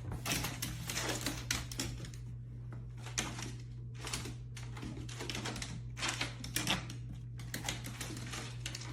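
A rapid, irregular run of sharp clicks and taps over a steady low hum.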